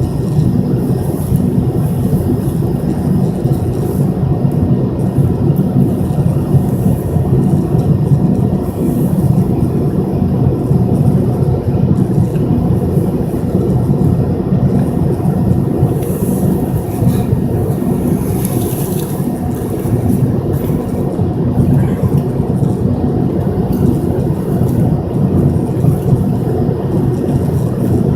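Cabin noise inside an MD-83 airliner: a steady, loud rumble from its rear-mounted Pratt & Whitney JT8D turbofans and the airflow, with a faint hiss above it.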